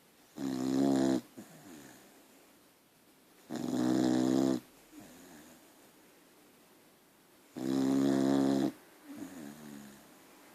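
A dog snoring in its sleep: three loud, pitched snores about four seconds apart, each lasting about a second and followed by a softer breath.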